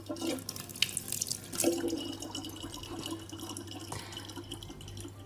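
Thin stream of water from a kitchen faucet running steadily into a plastic water jug, with a few faint clicks.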